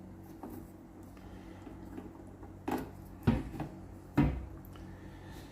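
Clicks and knocks from handling a vintage tube tester and its tubes, with three louder knocks about three and four seconds in, over a steady low electrical hum.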